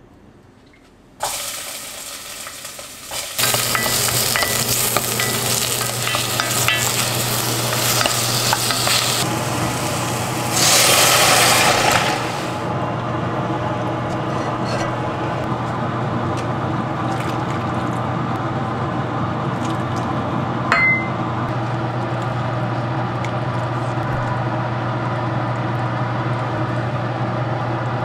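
Ginger and garlic sizzling and being stirred in hot oil in a pot. The sizzling starts about a second in and gets louder at about three seconds, over a steady low hum. It swells into a louder burst around ten to twelve seconds in, then settles to a steady sizzle, with a single clink about twenty-one seconds in.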